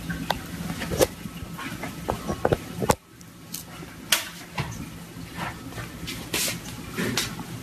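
Irregular light knocks, taps and rustles of a cardboard box as a cat moves with its head stuck inside it. A low hum cuts off about three seconds in.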